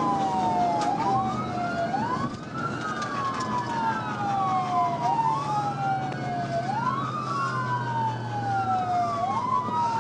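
Police siren wailing: each cycle rises quickly and then falls slowly in pitch, repeating about every two and a half seconds, over a steady low engine hum.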